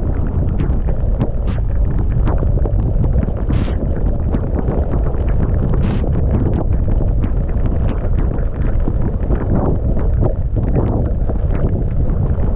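Strong wind buffeting a GoPro microphone in a blizzard: a loud, steady low rumble, with a few short hissing swishes.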